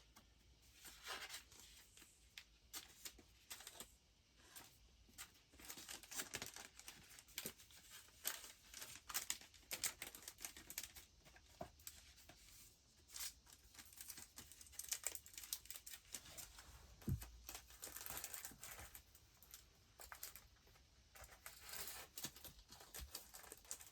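Faint rustling and crinkling of paper and craft materials being handled, with scattered light clicks and taps and a soft low thump about two-thirds of the way through.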